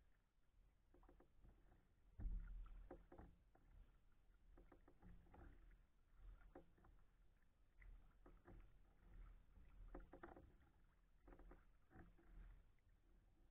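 Faint kayak paddle strokes in calm water, the blade dipping and dripping about every one and a half to two seconds. A low knock comes about two seconds in.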